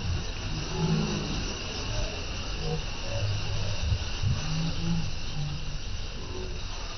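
Wind buffeting the microphone in irregular low rumbles over a steady hiss of water rushing and splashing past a moving boat's hull.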